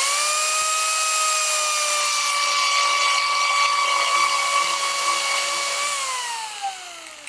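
Angle grinder driving an Arbortech TURBOShaft, a shaft with two carbide teeth at its tip, running at full speed with a steady high whine while it bores a hole into a log. About six seconds in it is switched off and the whine falls steadily in pitch as it winds down.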